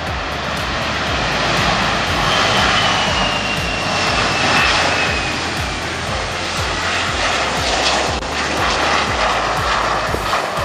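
Boeing 737's turbofan engines running at taxi power: a steady jet rush with a thin high whine that slides slightly down in pitch a couple of seconds in.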